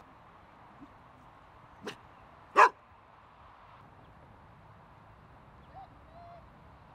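A dog barking twice in quick succession about two seconds in, the second bark much louder than the first.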